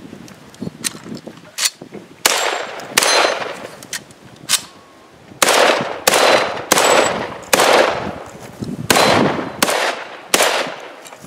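Semi-automatic rifle firing a string of about a dozen shots, one roughly every two-thirds of a second, each with a short echo tail. The first few shots are lighter and more spread out, and a pause of about a second comes before the last three.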